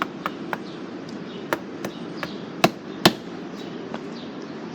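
Knocking on a door: a string of sharp, irregularly spaced knocks, the two loudest about two and a half and three seconds in.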